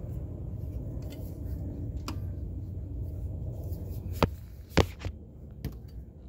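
Sharp metal clicks from locking pliers working a hose clamp onto a rubber power steering hose, five or so, the loudest two coming a little past the middle. Under them runs a steady low rumble.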